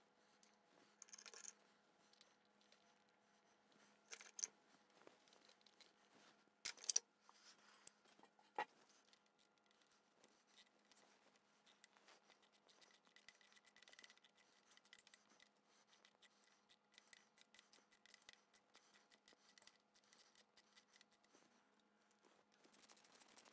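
Faint, scattered small metallic clicks and scrapes of screws being started by hand into a lifter block cover on a Harley Milwaukee-Eight engine, with a few short runs of quick ticks.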